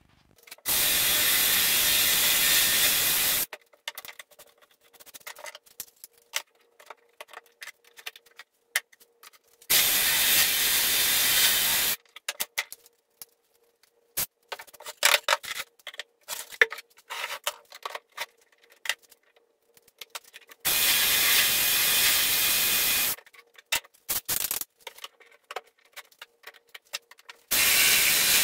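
Cordless drill boring holes through a drilling jig into plywood, in four runs of two to three seconds each. Between the runs come small clicks and knocks as the jig and drill are handled.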